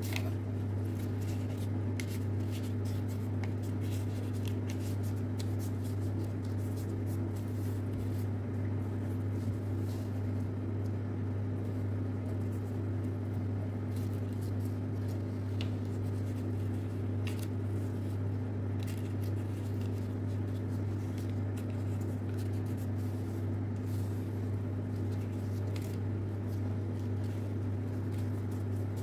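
Paper being folded and creased by hand: faint scattered crinkles and clicks from the sheet, over a steady low hum.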